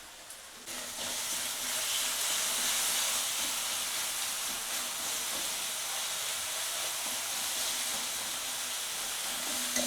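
Food frying in hot oil in a kadai: a steady loud sizzle that starts suddenly about a second in.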